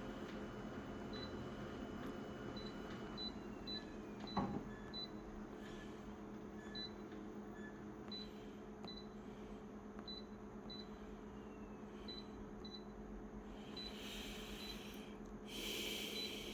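Photocopier control-panel keys beeping, short high beeps at irregular intervals as settings are keyed in, over the machine's steady hum. There is a click about four and a half seconds in and two short bursts of hiss near the end.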